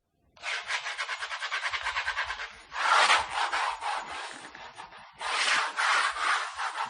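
Pencil drawing on paper: the graphite scratches in quick, rapid back-and-forth strokes, in three runs with brief pauses between them.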